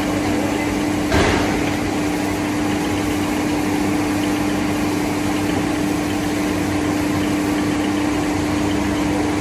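Four-head CNC nesting router running with a steady machine hum and one strong steady tone. A short, louder burst of noise comes about a second in.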